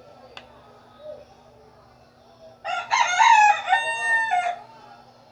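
A rooster crowing once: one call of about two seconds, with a few quick rising and falling syllables and then a long held note.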